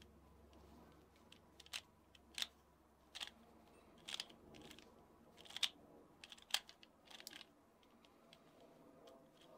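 Valk 3 speedcube being turned by hand: a quick, irregular series of short plastic clicks and clacks as its layers are turned and snap into place.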